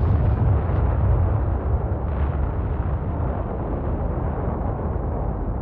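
Low, steady rumble of a volcanic eruption's ash plume.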